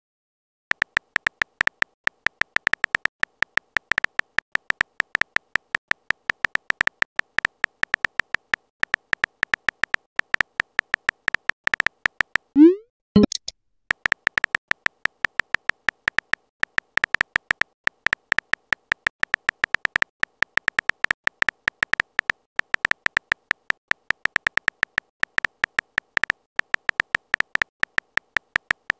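Rapid, irregular keyboard-typing ticks from a texting app's sound effect as a message is typed out. About halfway through, the ticks break for a short rising swoosh ending in a click as a message is sent.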